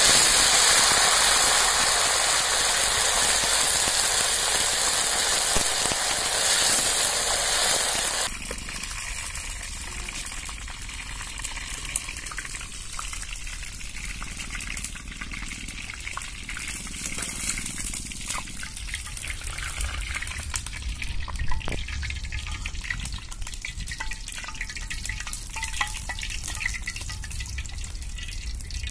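Fresh curry leaves dropped into hot oil in an iron kadai: a loud, fierce sizzling hiss that starts all at once and holds for about eight seconds, then drops suddenly to a much quieter crackle.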